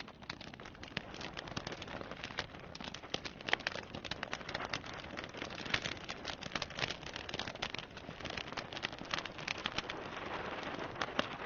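Water from an indoor slate fountain trickling and splashing, with a steady hiss and dense, irregular drip ticks.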